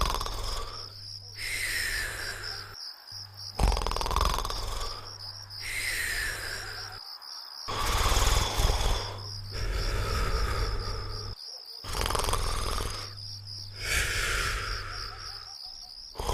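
Cartoon snoring in slow, regular breaths about every four seconds, several of them ending in a falling whistle, over crickets chirping steadily.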